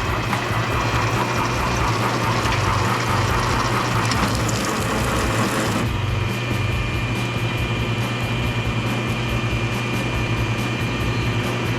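A machine running steadily with a constant low hum. A rougher, hissing layer on top cuts out about six seconds in.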